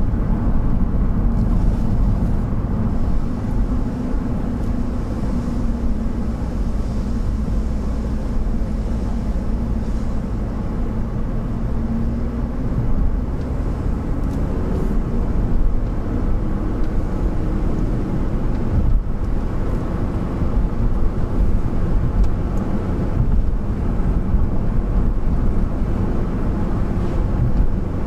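Engine and tyre noise of an emergency vehicle on a blue-light run, heard from inside the cabin: a steady low rumble.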